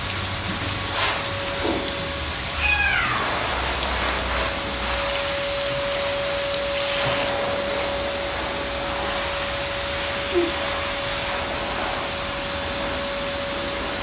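Tap water running and splashing during a bath for an African grey parrot, a steady hiss. About three seconds in comes a single falling, meow-like call.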